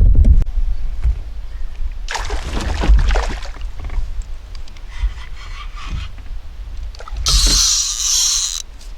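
Water sloshing and splashing against a canoe, with scrapes and knocks in the hull, in several irregular bursts; the loudest splash comes near the end. Wind rumbles on the microphone at the very start.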